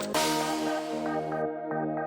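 Background electronic music with synthesizer notes and a steady beat; a cymbal-like wash just after the start fades out before halfway.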